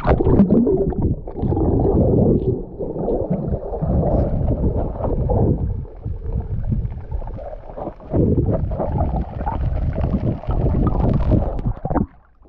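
Muffled water sloshing and gurgling right against the microphone in rough, uneven surges, as with a camera held at or just under the surface. It cuts off abruptly near the end.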